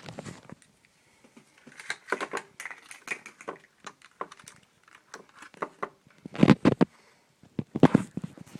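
Irregular clicks, taps and rattles of hands handling a headlight switch, its plug-in connector and battery leads, with two louder knocks about six and a half and eight seconds in.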